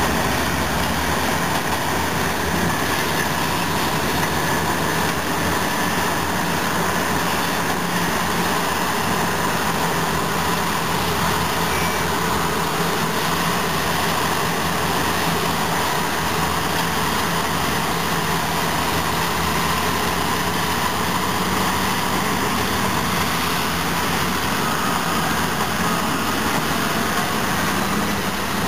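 Heavy diesel engines of Caterpillar D10 pushcat dozers and a 651B wheel tractor scraper, working under load as the dozers push the scraper through its cut. It is a loud, steady drone that holds without a break.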